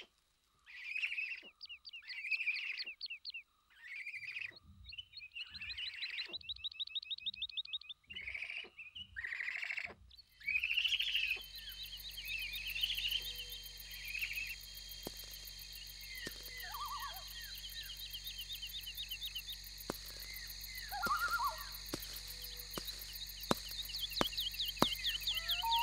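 Birds calling in short, repeated bursts for about the first ten seconds. Then a steady chorus of crickets and other insects begins abruptly, with a few scattered bird chirps over it.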